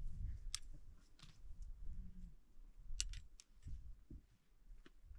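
Low, uneven rumble of wind on the microphone, with a handful of short, sharp clicks scattered through it, the loudest about three seconds in.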